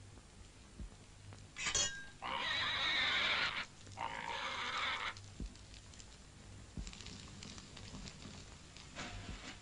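Two loud, harsh animal cries, each a little over a second long and close together, after a short sharp sound; a run of faint clicks begins near the end.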